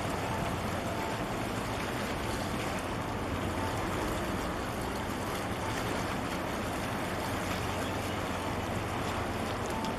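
Steady rush of wind and water, with a low, even rumble underneath, around a large container ship under way.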